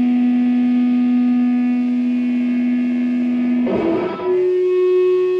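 Electric guitar feedback through a distorted amplifier: one steady sustained tone that breaks up briefly about four seconds in and settles on a higher pitch.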